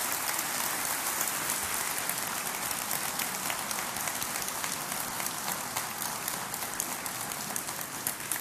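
Audience applauding, a steady, dense clapping that thins a little near the end.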